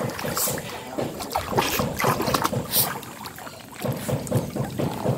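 Irregular splashing and sloshing of water as a dog wades in and swims, with a quieter stretch a little past halfway.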